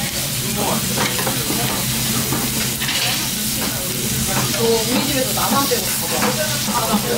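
Thin-sliced beef sizzling and frying on a hot grill plate, with metal tongs clicking and scraping against the plate as the slices are turned. A steady low hum sits underneath.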